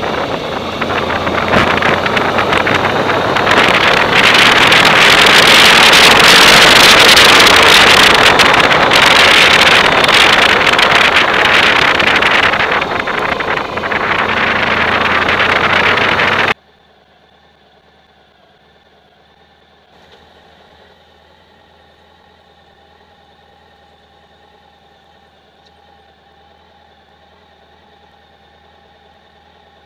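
Wind rushing loudly over the microphone of a bike-mounted camera while riding. It cuts off abruptly about halfway through, leaving a faint steady hum with a few held tones.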